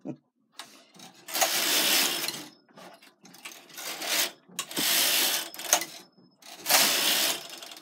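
Knitting machine carriage pushed across the needle bed three times, each pass a noisy mechanical run of about a second as it knits a row.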